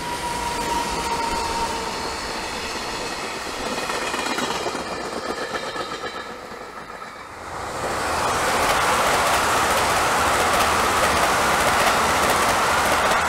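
A silver electric locomotive hauling a freight train passes with a whine from its traction motors over the rumble of wheels on rail. About seven and a half seconds in, the sound cuts to a louder JR West 223 series 1000-subseries electric multiple unit passing close by, its wheels rumbling along the rails.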